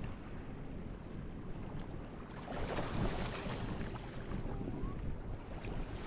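Small waves breaking and running up the beach: a steady surf wash that swells a little before halfway through as a wave washes in, then eases.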